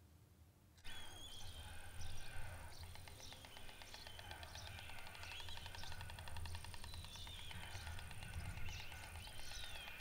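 Small birds chirping and whistling over a low, steady outdoor rumble. It starts about a second in, after a quiet indoor hush.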